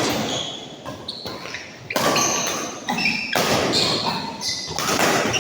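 Badminton rally: rackets striking the shuttlecock three times, about a second and a half apart, each hit echoing in the hall, with short high squeaks from players' shoes on the court between hits.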